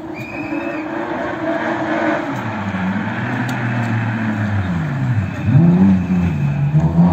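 A rally car's engine running and revving, its pitch dipping and climbing again about halfway through and loudest in the second half.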